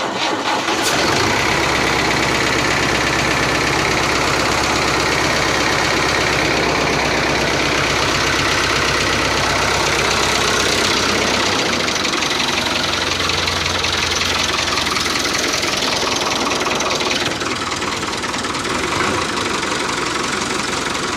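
Tractor engine running steadily with a knocking beat. Its low note shifts about twelve seconds in, and it gets a little quieter about seventeen seconds in.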